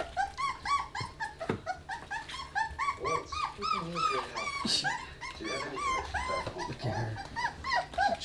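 Three-week-old pit bull puppies whimpering and squealing in a rapid string of short, high cries, several at once.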